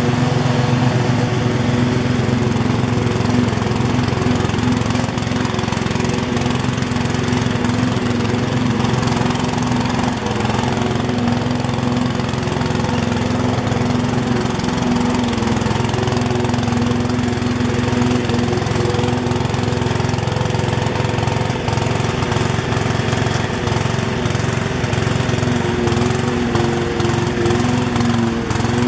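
MTD riding lawn tractor's engine running steadily, heard close up from the driver's seat.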